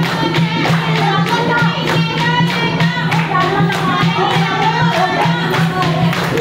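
Music: a sung song over a fast, even percussion beat of about four strokes a second, with a steady low drone beneath.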